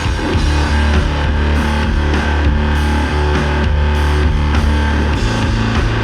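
Doom/sludge metal: a slow, heavy electric guitar riff of long sustained low notes, with a few percussive hits spread through it.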